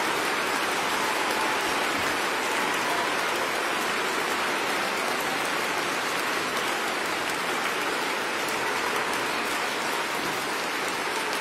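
Audience applauding steadily in a concert hall, a dense even clapping that fills the hall.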